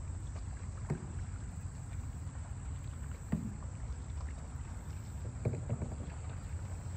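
Small rowboat on the river: water sloshing against the hull over a low steady rumble, with three short knocks about one, three and five and a half seconds in.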